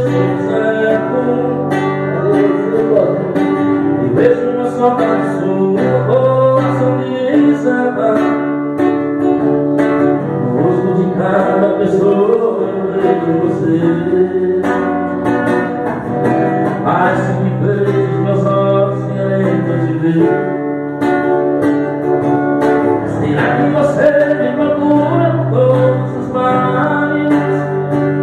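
A man singing with his own acoustic guitar accompaniment, strummed, his voice picked up by a microphone.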